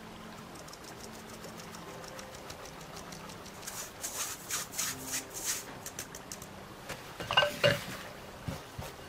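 Flour being sifted through a fine stainless-steel mesh sieve over a glass bowl: a run of soft, hissy rasping strokes from the shaken sieve about four seconds in. Near the end come two short ringing clinks of metal on the glass bowl, then a few soft knocks as a rubber spatula starts cutting the flour into the dough.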